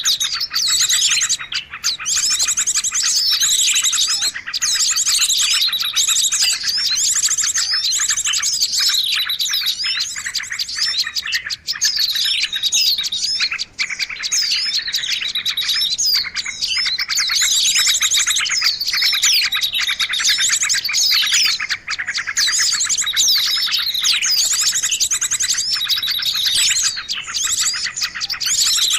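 Dense chorus of many small birds chirping and trilling rapidly, high-pitched calls overlapping without a break: a recorded lure call used to attract small birds.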